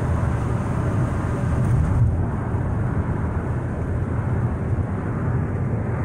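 Steady road noise inside a moving car's cabin: a low rumble of the tyres on wet pavement and the engine at cruising speed.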